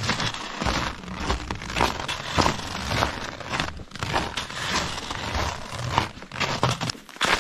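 Footsteps crunching in snow at a walking pace, one crisp crunch roughly every half second to second.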